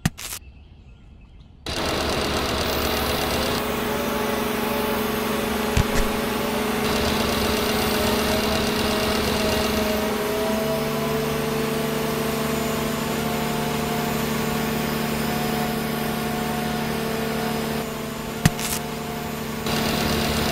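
Small yellow DC gear motor of a toy crane's winch, switched on just under two seconds in and then running steadily with a mechanical hum made of several steady tones. A lower tone joins about halfway through, and the sound dips briefly near the end.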